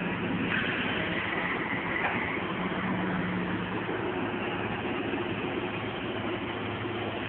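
Caterpillar 315 excavator's diesel engine running steadily, a constant low drone.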